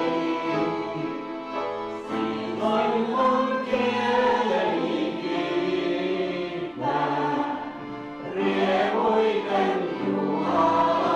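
A piano accordion and an upright piano playing a hymn together, with singing over them.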